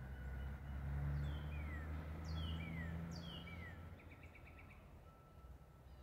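A songbird singing: three clear notes, each sliding down in pitch, about a second apart, then a quick run of about six short notes, over a steady low rumble of background noise.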